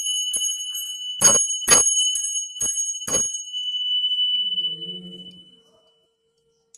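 Hindu puja hand bell (ghanta) rung in quick, uneven strokes, about nine clangs over a steady high ring, the loudest a little over a second in. The strokes stop about three seconds in and the ring fades away. It is rung to close the evening puja (sandhya).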